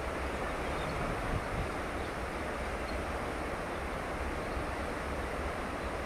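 Steady rush of churning water in a cruise ship's wake, over a continuous low rumble.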